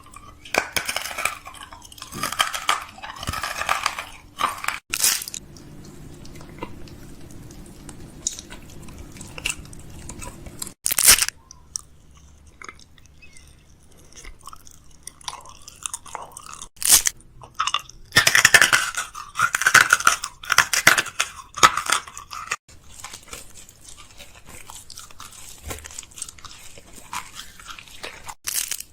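Crunchy chewing and biting, in irregular bursts of crunches with short pauses between.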